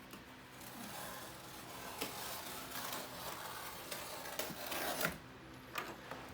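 Cardboard scraping and rubbing as a large shipping box is worked open, with a few sharp knocks along the way.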